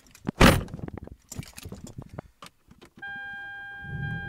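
A car door shuts with a thud about half a second in, followed by keys jangling and clicking inside the car's cabin. From about three seconds in, a steady electronic warning chime from the car sounds as one held tone, and near the end a low engine sound rises as the car starts.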